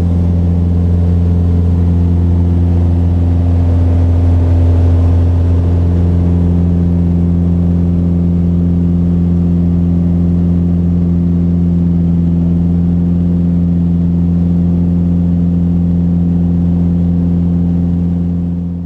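Mooney M20J's four-cylinder Lycoming IO-360 engine and propeller droning steadily in flight, heard from inside the cockpit. The pitch and level stay even throughout.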